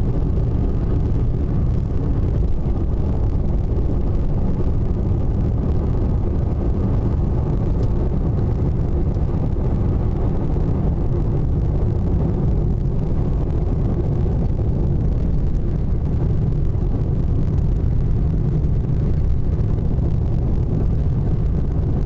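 Steady low rumble of a car driving at road speed, heard from inside the cabin.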